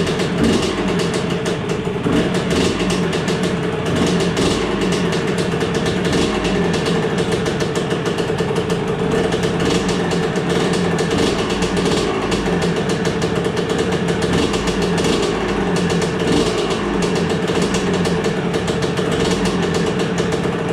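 1986 Honda CR 125's single-cylinder two-stroke engine running steadily at idle, just brought back to life after a rebuild.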